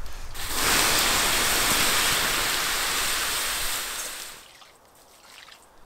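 Water poured onto the embers of a campfire, hissing and steaming for about four seconds before dying away.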